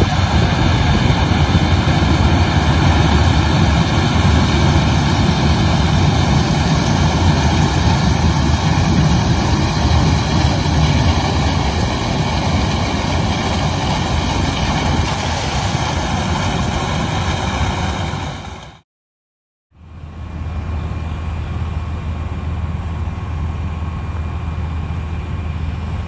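Claas Lexion 760 combine harvester running under load as it harvests corn, a loud, steady engine and machinery noise. It cuts off about 19 seconds in, and after a short silence a quieter steady engine hum follows.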